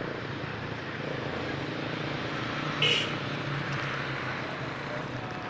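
Steady low background hum of outdoor noise, with one brief sharp sound about three seconds in.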